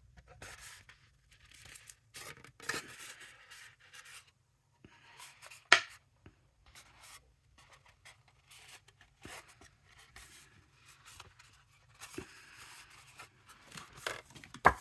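Thick cardstock rustling and creasing as it is folded and pinched by hand, with two sharp clicks, about six seconds in and near the end, as the loudest sounds.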